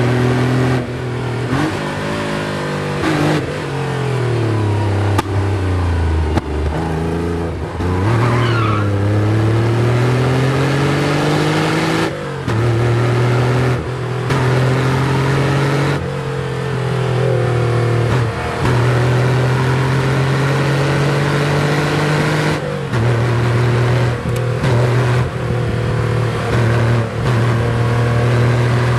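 Porsche 911's flat-six engine driven hard at speed. Its pitch drops and climbs again in the first ten seconds, then holds at high revs, broken by short dips every few seconds. A brief high, wavering squeal comes about eight seconds in.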